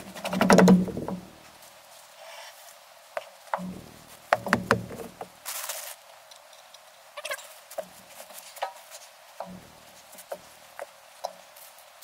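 Irregular clunks and knocks of a heavy steel truck wheel and tire being rocked and shifted on the hub, with heavier thuds near the start, around four to five seconds in and again near ten seconds, and a brief scuffing rustle in the middle.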